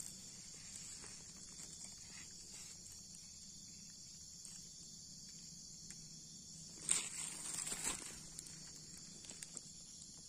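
Steady high chirring of insects, with a few light ticks and a short rustle and crackle in the dry ground litter about seven seconds in.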